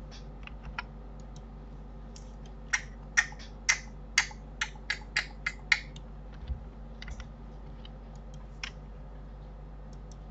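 Computer keyboard keys and mouse buttons clicking as 3D software is operated: a quick run of about ten sharp clicks a few seconds in, with scattered fainter clicks before and after, over a steady low hum.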